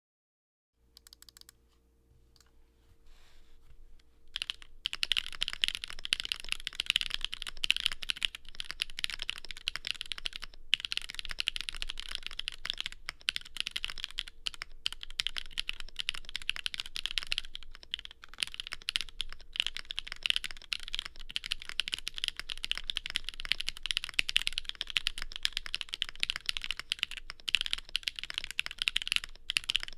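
Typing on a stacked-acrylic Alice-layout mechanical keyboard with Gateron Pure Berry switches on a POM plate and GMK Minimal keycaps. A few faint keystrokes at first, then fast continuous typing from about four seconds in, broken by a few brief pauses.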